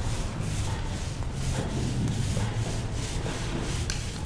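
Paint roller on a long pole rubbing back and forth over a rough concrete floor, laying on a coat of paint. It makes a rasping swish in an even rhythm of about two to three strokes a second, over a steady low hum.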